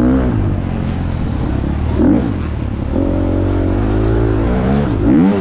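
FX350 dirt bike's four-stroke engine revving hard under throttle, its pitch climbing and dropping several times with throttle and gear changes and holding steady for a stretch in the middle.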